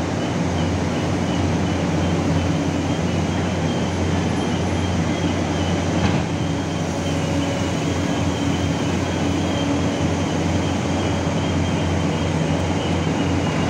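Heavy diesel machinery running steadily: the engines of a large hydraulic excavator and a wheel loader making a constant low drone, with a faint high whine above it. A brief knock comes about six seconds in.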